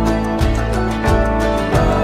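Background music with held chords over a steady, unhurried beat, about three beats every two seconds.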